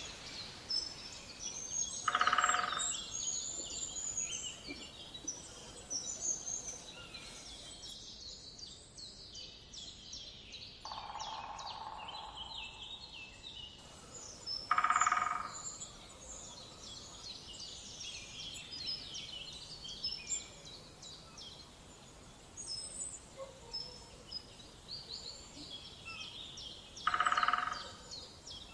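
Birdsong ambience: many small birds chirping and twittering high-pitched throughout. A louder, lower call sounds three times, about twelve seconds apart.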